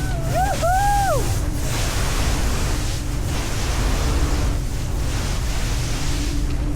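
Speedboat underway at speed: a steady rush of wind on the microphone and churning water over a low engine rumble. A short rising-and-falling call, like a whoop, sounds in the first second.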